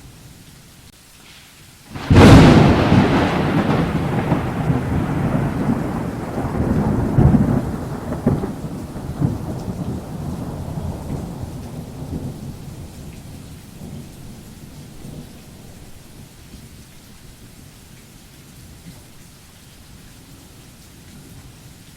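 A thunderclap over steady rain: a sudden loud crack about two seconds in, then rumbling that dies away slowly over about ten seconds, leaving the rain.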